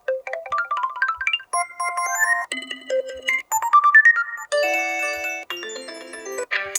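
HTC Desire 628 ringtones played one after another, a new one about every second: short bright electronic melodies of quick, mostly rising notes.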